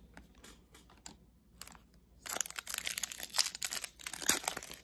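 Foil trading-card pack wrapper crinkling and tearing as it is handled and opened, starting about two seconds in after a few faint ticks of card handling.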